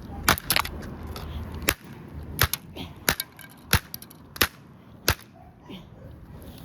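Hammer blows on a toy remote-control car: about eight sharp strikes, coming at a steady pace a little under a second apart and stopping a little after five seconds in.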